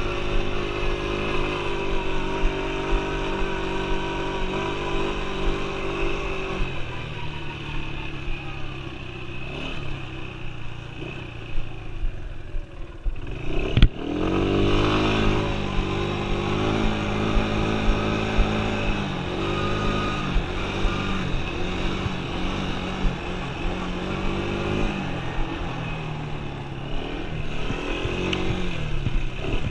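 Yamaha Breeze 125 quad's single-cylinder four-stroke engine running under way, holding a steady pitch at first. About halfway there is a sharp click, after which the engine revs up and down again and again as the throttle is worked.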